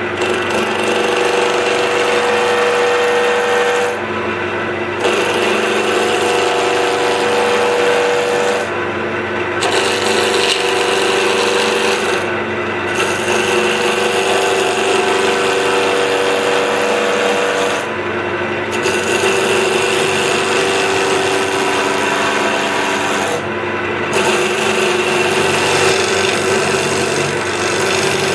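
Wood lathe running while a turning chisel makes shear cuts on a spinning wooden blank, bringing it down close to size. A steady hiss of the cut rides over the motor's hum and breaks off briefly about five times, as the tool comes off the wood.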